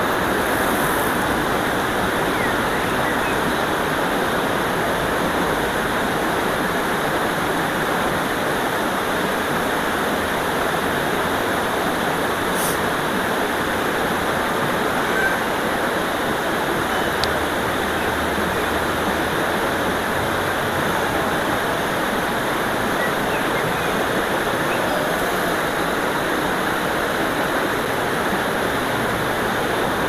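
Shallow river water rushing over a low ledge, a steady splashing whitewater rush with no letup.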